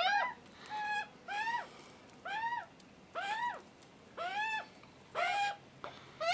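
Juvenile Australian magpies begging for food: a steady run of repeated calls, each about half a second long and arching up then down in pitch, about one and a half calls a second.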